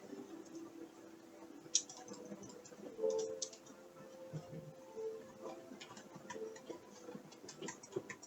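Faint creaking and scattered ticks and clicks from the house, with a sharp click just before two seconds in and a louder creak around three seconds.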